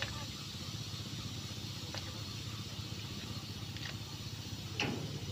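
Railway tank wagons rolling slowly during shunting: a steady low rumble with a few sharp clanks of wheels and running gear, the loudest near the end.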